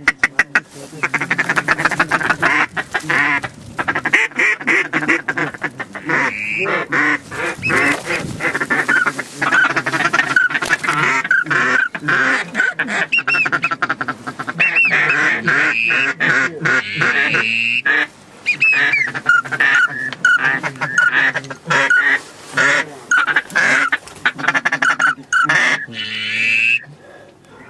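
Duck quacking and rapid chattering, nearly nonstop, with a few brief pauses.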